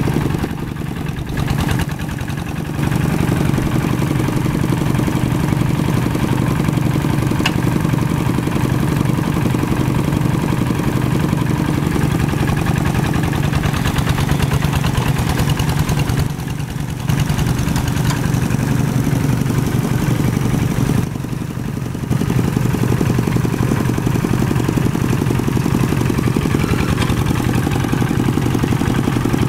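Two-wheel hand tractor's single-cylinder diesel engine running steadily under load as its cage wheels churn through sticky, straw-laden paddy mud. The sound dips briefly three times: about a second in, and twice in the second half.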